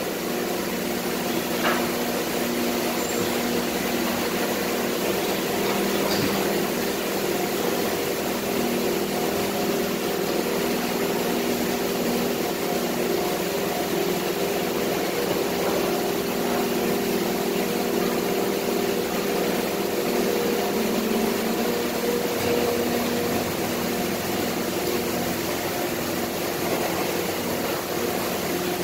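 Factory machinery running, most likely the large plastic injection moulding machine: a steady drone of several low tones over an even hiss, with a light knock about two seconds in.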